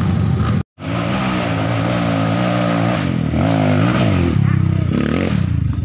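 Dirt bike engine revving hard on a climb, its pitch rising and falling with the throttle. The sound cuts out for an instant about a second in.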